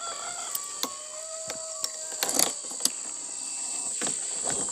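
Insects droning steadily with a high, even tone, with a few scattered clicks and knocks close by.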